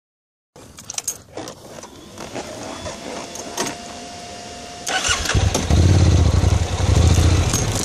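Honda NC700X motorcycle's parallel-twin engine starting about five seconds in and then running, after a few clicks and knocks and a faint steady whine.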